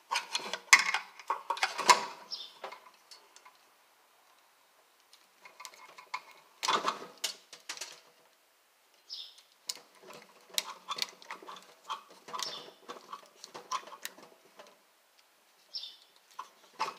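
Ideal Kinetic Reflex T-stripper pliers clicking and snipping as they strip the insulation off the ends of 14-gauge copper wire: clusters of small sharp clicks, with a quiet pause about three seconds in.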